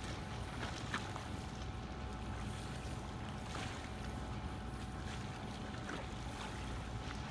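Faint, irregular splashes from a swimmer's strokes in a pool, over a steady low rumble.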